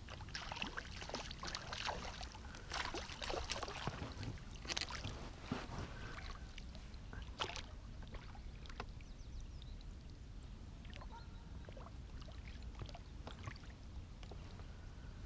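Small boat being rowed on a pond: water splashing and dripping with light knocks and clicks, busiest in the first half.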